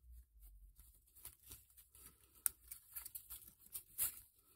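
Faint rustling and scraping as a bundle of cables is handled and tied off by hand, with a few sharp ticks, the loudest about two and a half seconds and four seconds in.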